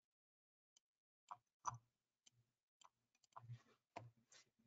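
Near silence broken by about six faint, short computer mouse clicks as slides are navigated.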